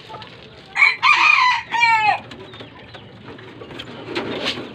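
A rooster crowing once, a loud call of about a second and a half whose last part falls in pitch. Near the end come a few light knocks.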